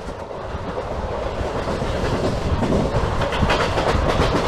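Passenger train coaches running at speed on the track, the wheels clacking over rail joints. The running noise grows steadily louder, and the clacks come thicker and sharper in the second half.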